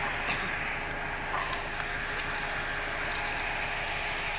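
A steady high hiss over a faint steady hum, with a few scattered sharp clicks.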